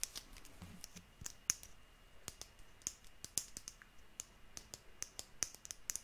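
A rapid, irregular series of sharp, close-miked clicks and taps, a few to several a second.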